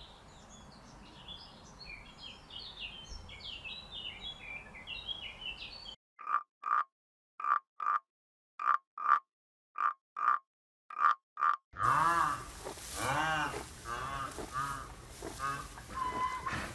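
Faint small-bird chirping for the first few seconds, then a tree frog croaking in short, sharp calls, often in pairs, with silence between them. From about twelve seconds in, a rhinoceros gives a run of low, repeated calls.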